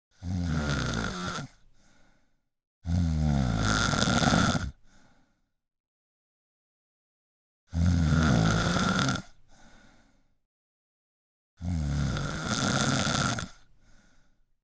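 A person snoring: four loud, rough snores of about one and a half to two seconds each, at uneven intervals. Each is followed by a short, fainter trailing sound.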